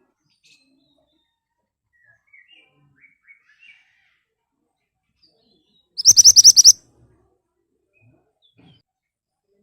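Pied bushchat (mantenan) singing a rapid-fire 'nembak' phrase: one loud burst of about ten quick, sharp, high notes, lasting under a second, about six seconds in. A few faint, softer chirps come a few seconds earlier.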